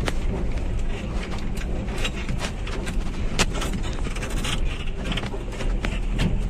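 Cabin noise of a moving van: a steady low rumble from the engine and road, with frequent sharp rattles and knocks.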